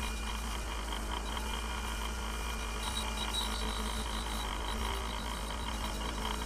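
A 1/2 HP, 3,450 RPM bench grinder-buffer motor running steadily with a low hum, while its wire wheel scrubs against a rusty axe head with a continuous hissing scratch, stripping the rust.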